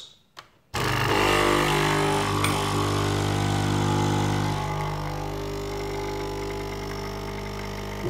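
Nespresso Citiz coffee machine's vibratory pump buzzing as it forces hot water through the capsule to brew an espresso. The buzz starts abruptly about three-quarters of a second in, holds steady, and turns softer from about halfway.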